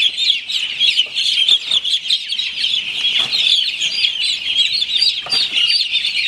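A large flock of broiler chickens calling all at once: a dense, unbroken chorus of many overlapping high-pitched peeps and chirps.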